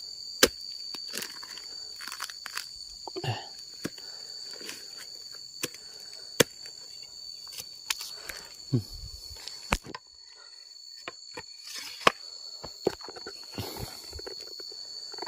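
A small durian's spiky husk being pried and torn open by hand and machete among dry leaves, giving scattered sharp cracks, snaps and crunches. A steady high insect buzz runs underneath. Near the end come footsteps crunching through dry leaf litter.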